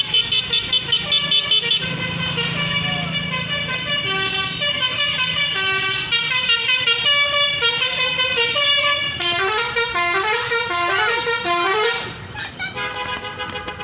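Tour bus 'telolet' musical horn playing a tune of short stepped notes, with quick runs of rising notes toward the end before it falls quieter.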